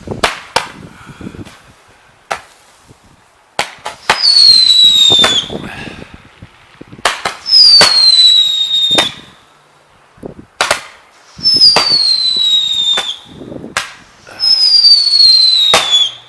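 Fireworks going off: four whistling shots, each a falling whistle about a second long, among sharp cracks and pops.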